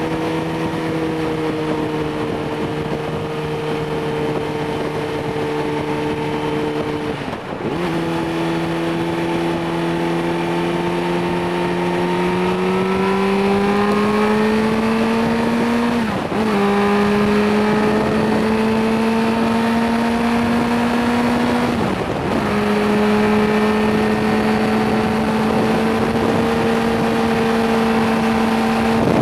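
Suzuki GSR 600's inline-four engine, restricted to 25 kW, running under load while riding. The engine note holds and climbs with the revs, with three brief breaks in pitch and loudness at gear changes: about a quarter of the way in, a little past halfway and about three-quarters through.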